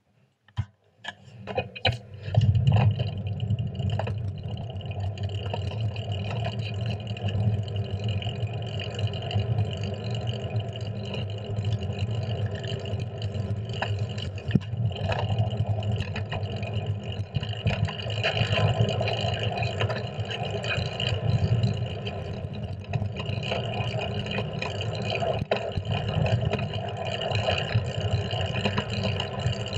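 Wind and road rumble picked up by a camera mounted on the handlebars of a moving fixed-gear track bike, with frequent small knocks and rattles. It comes in from near silence after a few clicks about two seconds in, then stays steady.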